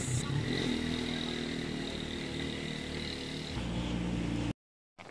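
An engine running steadily nearby, its pitch shifting a little and growing heavier about three and a half seconds in. It cuts off abruptly a second before the end.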